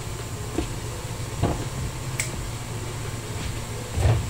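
Steady low mechanical hum, with a few light knocks and clicks of kitchenware being handled and a louder thump near the end.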